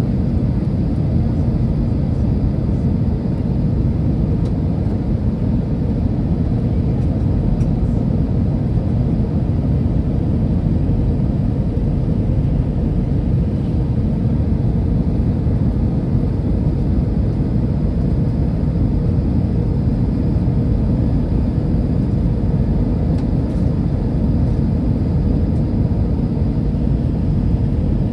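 Steady low rumble of jet engine and airflow noise inside the cabin of an Airbus A319-100, heard from a window seat over the wing while the airliner descends on approach.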